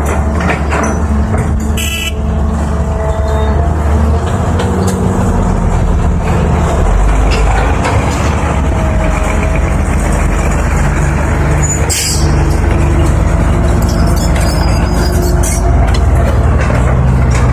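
A 320 excavator's diesel engine running steadily under load, with a sharp knock about two seconds in and another about twelve seconds in.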